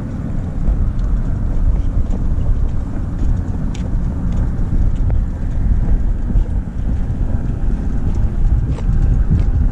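Wind buffeting the microphone: a loud, steady low rumble, with a few faint clicks.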